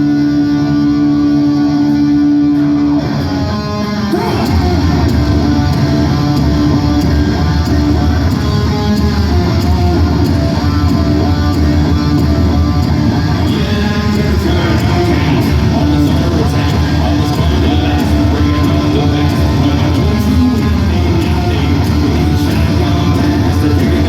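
Hard rock band playing live in an arena: a single held note for the first three seconds, then the full band comes in about four seconds in with distorted electric guitars, bass and drums.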